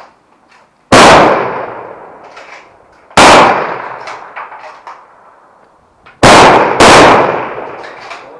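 Four rifle shots from a firing line, each with a long trailing echo. The last two come only about half a second apart, too fast for one bolt-action rifle, so more than one rifle is firing.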